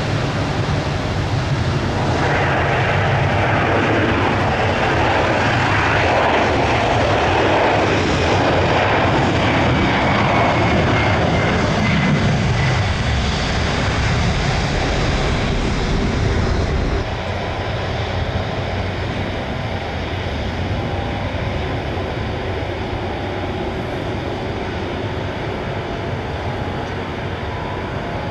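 Jet airliner engines running loud as the aircraft passes, with a high whine that falls in pitch partway through. The noise drops suddenly about seventeen seconds in, leaving a lower steady rumble.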